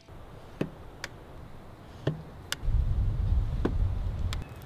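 PNW Pine dropper post being worked through its Loam lever, giving a few light, delicate clicks rather than the loud clunk of a typical dropper post. A low rumble runs through the second half.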